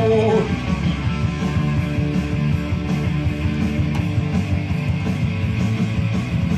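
Rock music with guitar playing; a held note ends about half a second in and a driving beat carries on.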